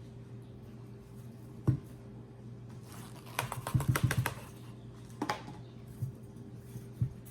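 Soil and chunky orchid potting mix being added to a plant pot by hand: a single knock, then a quick rattling run of clicks a couple of seconds later, and a few scattered knocks. A steady low hum runs underneath.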